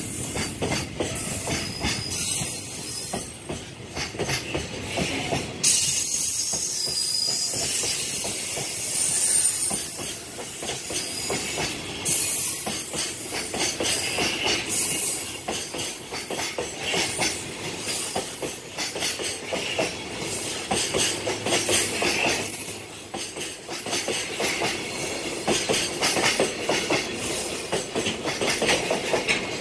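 Container flatcars of a long freight train rolling past close by, wheels clattering over the rail joints. High-pitched wheel squeal rises at times, around 2 seconds in, from about 6 to 10 seconds, and again near 12 seconds.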